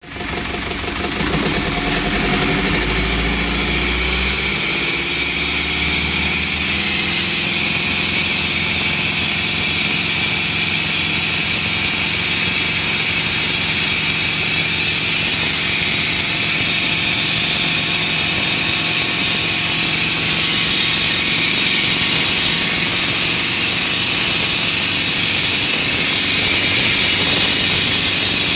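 Cummins ISB 3.9 four-cylinder turbo-diesel inboard running on its first run, pulling the boat up to speed: its pitch climbs over the first few seconds, then holds steady under way with a constant hiss over the engine note.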